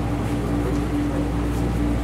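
A boat's engine running with a steady drone, a low hum under an even, pulsing mid-pitched tone.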